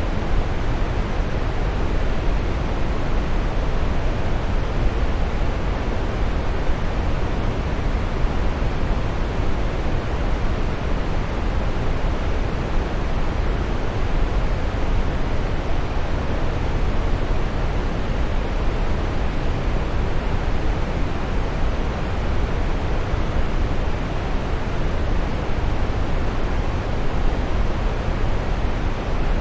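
Waterfall: water falling and splashing in a steady, unbroken rush that is strongest in the low range.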